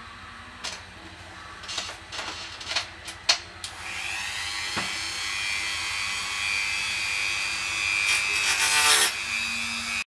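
Handheld rotary tool cutting a carbon-fibre tube: a few knocks and clicks as it is handled, then the motor spins up about four seconds in to a steady high whine. The cut grows louder near the end, and the sound stops abruptly.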